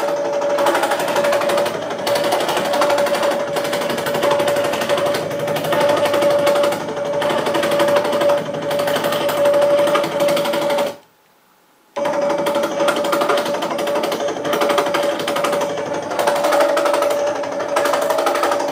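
Circular saw with a 190 mm blade running under power and cutting through a wooden board as the automatic slide feeds it, a steady high buzz. About eleven seconds in, the sound stops abruptly for about a second, then comes back just as suddenly.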